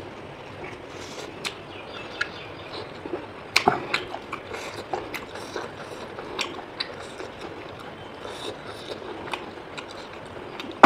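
A person chewing food close to the microphone: scattered small wet mouth clicks and smacks, with a louder click about three and a half seconds in.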